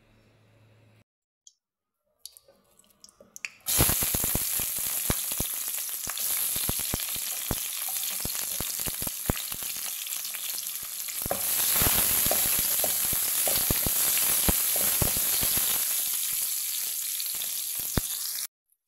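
Sliced onions sizzling and crackling in hot oil in a frying pan. The sizzle starts suddenly a few seconds in, grows louder about halfway through, and cuts off suddenly near the end.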